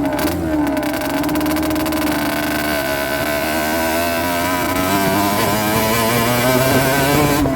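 Rieju Drac 50's two-stroke engine running under way. The revs waver and then climb slightly over the second half.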